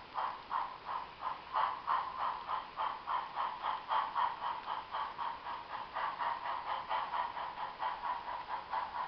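HO scale model train running around the layout's track loop: a steady, rhythmic clatter of about three beats a second.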